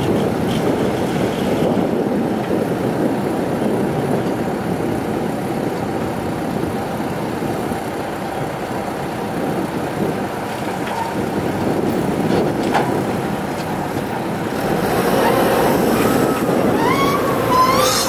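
Diesel engines of a Kobelco hydraulic excavator and a six-wheel dump truck running steadily. About fifteen seconds in it grows louder, and a rising hydraulic whine comes in as the excavator's arm swings around.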